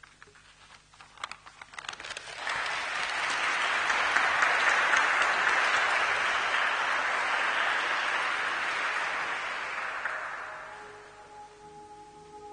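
Congregation applauding: a few scattered claps build into full, steady applause about two seconds in, which dies away near the end.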